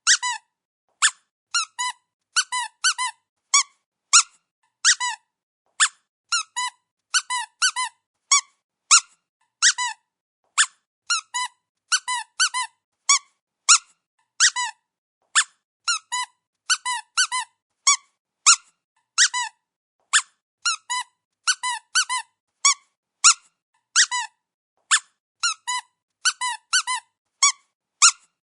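Rubber squeaky dog toy being squeezed over and over: short high-pitched squeaks, one at a time or in quick pairs and triples, with brief silences between them.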